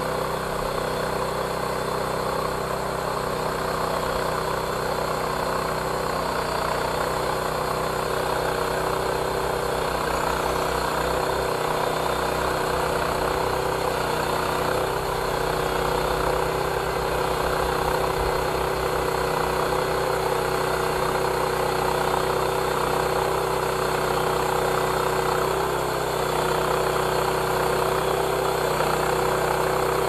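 Engine of a homemade bandsaw mill running steadily under load as the band blade saws through a log of dry spruce, which is hard to cut.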